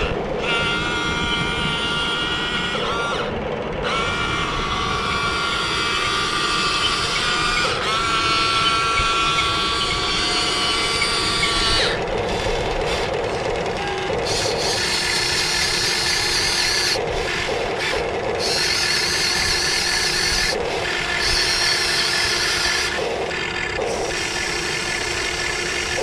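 Electric motors and gear trains of a Huina 1550 RC excavator whining as the boom, arm and swing move, shifting pitch as each movement starts. In the second half the whine stops and starts in short runs as the model picks up and places a log.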